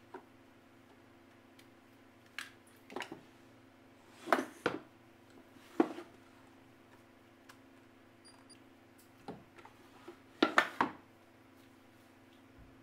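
Irregular sharp clicks and knocks, a few close together about four seconds in and again about ten seconds in, over a steady low hum.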